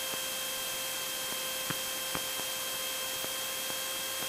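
Steady electrical hiss with a faint, even high whine in several steady tones: the noise floor of an aircraft intercom audio feed between transmissions. A few faint ticks come through it.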